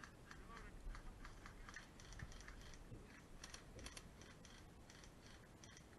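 Faint, irregular crackling clicks of footsteps through dry pine needles, leaf litter and twigs.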